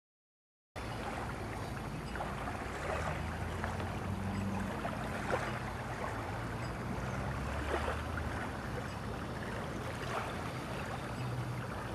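Calm shoreline ambience: small waves lapping at a sandy beach, with a low steady motor hum underneath that shifts in pitch now and then.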